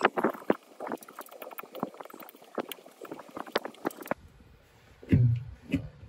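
Fingers pressing and smoothing two-part epoxy putty over a hole in a fridge's plastic inner liner: a run of small irregular clicks and creaks from the plastic, stopping about four seconds in. A single dull knock just after five seconds.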